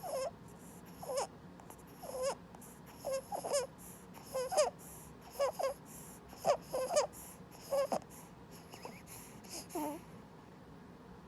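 Newborn infant's squeaky, chipmunk-like inspiratory stridor: about a dozen short squeaks, one with each breath in at uneven intervals of half a second to a second, dying away about ten seconds in. This is the sign of laryngomalacia, floppy tissue above the voice box collapsing as he inhales.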